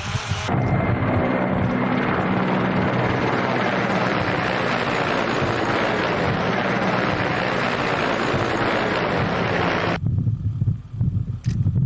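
Steady, loud engine roar that cuts off abruptly about ten seconds in, followed by a lower rumble with wind buffeting the microphone.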